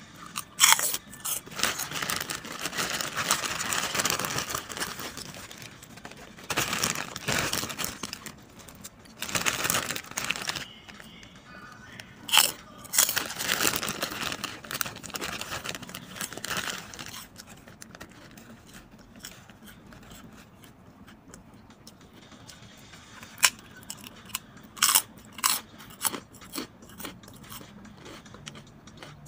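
Chicharon baboy (crisp deep-fried pork rinds) being bitten and chewed with loud crunches, mixed with a clear plastic bag crinkling as pieces are taken out. The crunching and crinkling come thick and irregular through the first half, then thin out to scattered sharp cracks.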